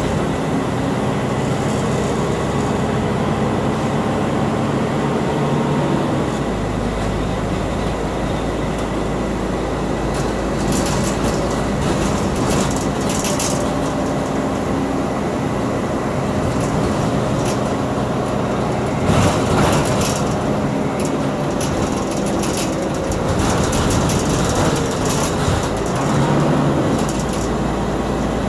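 Scania East Lancs OmniDekka double-decker bus heard from inside while on the move: a steady engine drone whose pitch shifts as the bus changes speed. Rattles from the bodywork and fittings come in the middle, and there is a louder knock about two-thirds of the way through.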